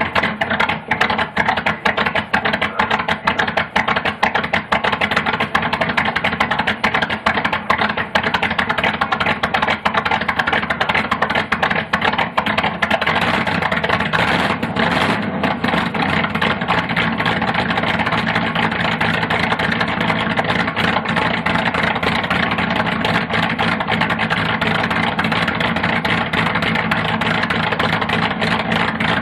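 Cold-started 1982 Pontiac Firebird 305 small-block V8 with a Comp Cams 292H camshaft, running unevenly just after catching from a hard start, then settling into a steadier idle about halfway through.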